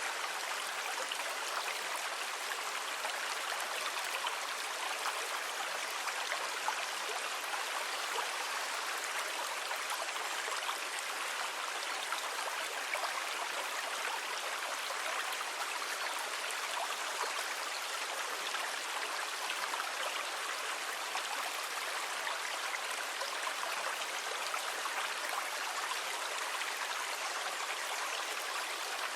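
Water rushing steadily, a continuous fine fizzing hiss without the rise and fall of separate waves.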